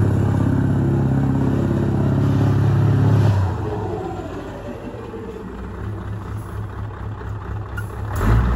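Scania V8 diesel semi-tractor engine running hard under throttle as the truck spins donuts on dirt. About three and a half seconds in the throttle comes off suddenly and the engine drops to a quieter low-speed run, picking up again near the end.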